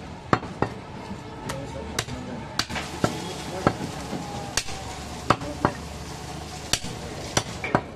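A butcher's heavy knife chopping goat meat on a wooden log block: about a dozen sharp, irregular chops, one or two a second.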